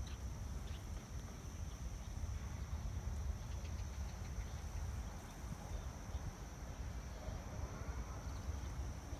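Wind buffeting the microphone in a steady low rumble, with a faint steady high-pitched whine above it.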